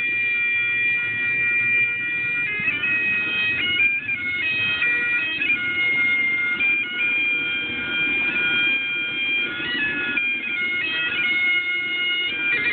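Bagpipes playing a tune: held notes, each lasting a second or more, broken by quick flurries of short ornamental notes.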